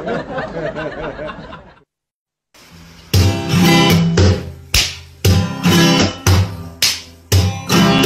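Strummed ukulele background music with a steady beat, coming in about three seconds in. It follows a brief wavering voice and a short pause.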